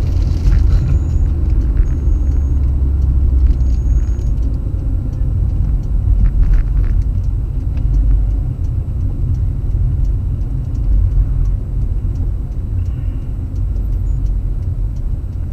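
Steady low rumble of a moving car, its engine and road noise heard inside the cabin through a windshield-mounted dashcam's microphone.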